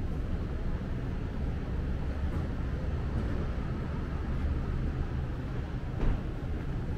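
Steady low rumble of city street traffic, with a brief knock about six seconds in.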